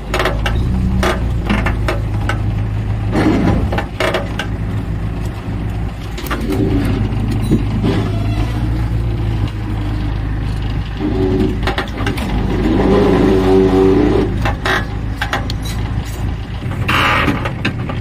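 Heavy diesel engine running steadily at low revs, most likely the JCB backhoe loader working beside the overturned trolley, with scattered knocks.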